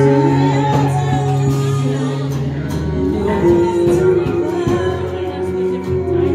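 Live band performing: a woman singing into a handheld microphone, backed by guitar and drums.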